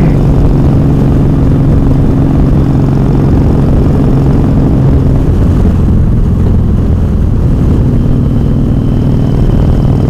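Touring motorcycle engine running steadily at highway cruising speed, heard from the rider's seat over a constant rush of wind and road noise.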